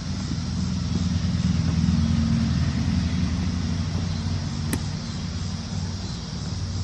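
A motor vehicle engine running steadily, growing louder for a couple of seconds and then easing off. A single sharp click comes about two-thirds of the way through.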